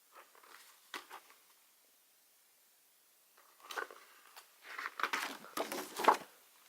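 Paper rustling as calendar pages are handled and turned: a brief rustle with a couple of sharp flicks about a second in, then a longer, louder spell of page handling in the second half.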